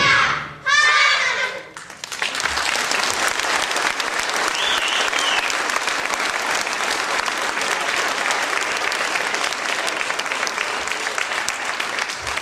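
The last sung notes of a song end about a second and a half in, then an audience applauds steadily, a dense patter of many hands clapping.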